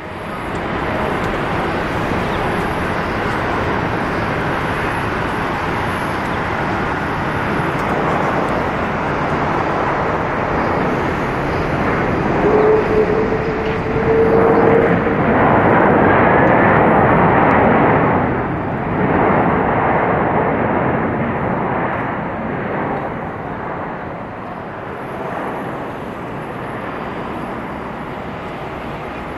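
Boeing 767-300ER jet engines as the airliner lands and rolls out on the runway: a steady jet rumble that swells to its loudest about halfway through, with a brief rising whine, then eases off.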